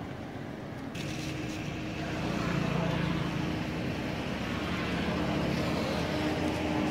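Steady engine hum over background noise, setting in about a second in and growing a little louder after that.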